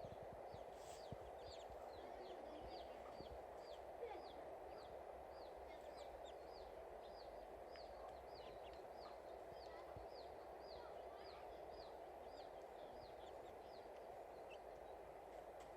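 A bird calling over and over, a short high chirp that slides downward, about two a second, over a steady faint hiss.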